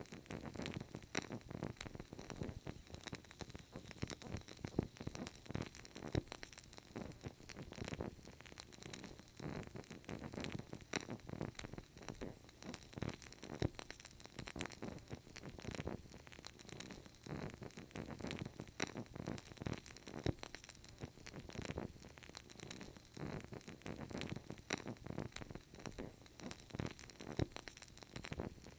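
A burning candle crackling softly: a steady run of small, irregular pops and ticks over a faint hiss.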